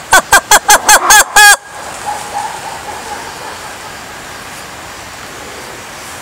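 A sifaka calling: about eight short, loud calls in quick succession over the first second and a half, each dropping in pitch, the last two longer. A faint steady hiss follows.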